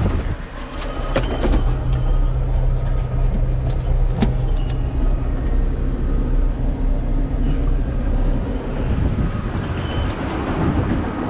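Heavy diesel engine idling with a steady low hum, with a few sharp clunks and clicks over it, mostly in the first half.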